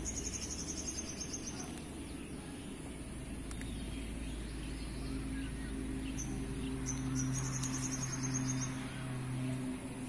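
Outdoor ambience: a high, rapid pulsing trill heard twice, near the start and again about two-thirds of the way in, over a low steady engine hum that comes in about halfway and grows louder.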